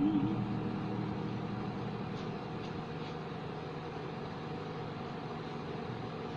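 The last held note of a hymn's music dies away in the first second or so. A steady hum of room background noise follows, with a few faint ticks about two to three seconds in.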